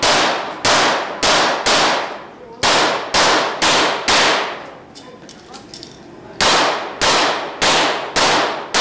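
Handgun shots fired at a steady pace, about one every half second, each followed by a long echo off the walls of an indoor range. Eight shots, a pause of about two seconds, then four more.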